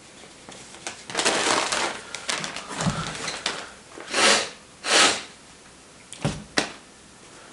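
Gift wrapping crinkling and rustling as a present is unwrapped by hand, with two louder rustles about four and five seconds in and two sharp clicks near the end.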